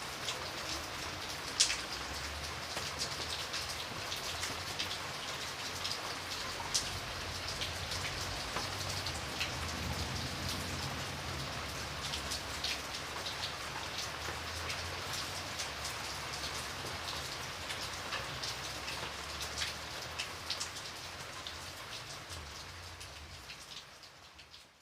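Light rain falling steadily, with single drops striking sharply here and there, one of them loud about a second and a half in. It fades out over the last few seconds.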